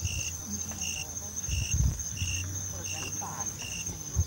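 Dusk insect chorus: a steady high-pitched buzz, with a second, lower call pulsing about one and a half times a second, over a low rumble.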